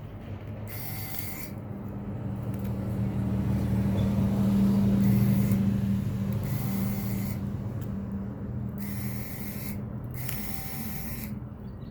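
A small screwdriver scraping and turning on tiny screws inside a phone, in five short scratchy strokes. Under it runs a low hum that swells to its loudest about halfway through and then fades.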